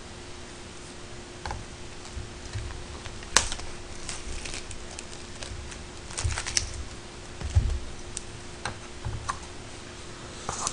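Light clicks, taps and rustles of disposable wooden chopsticks and food packaging being handled at a table, with one sharp click about three seconds in; a faint steady hum underneath.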